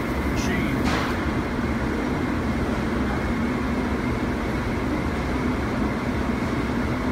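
Extraction booth's blower running steadily: an even rushing noise with a low hum. Two short hisses in the first second.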